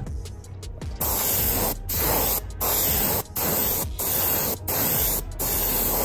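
Airbrush spraying opaque white paint onto a lure in about seven short hissing bursts, each a little over half a second long, starting about a second in.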